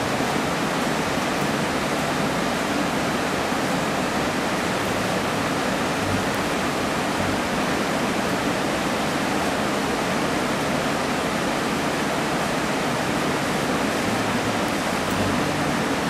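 Whitewater rapids rushing steadily over and around boulders.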